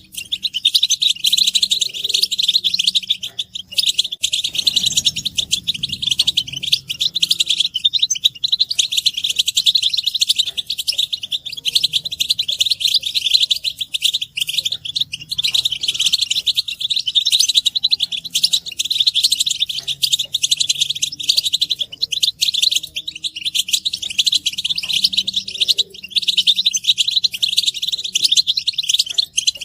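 European goldfinches twittering together in a dense, continuous chatter of rapid high chirps: excited group calls of the kind used to spur a male goldfinch to sing.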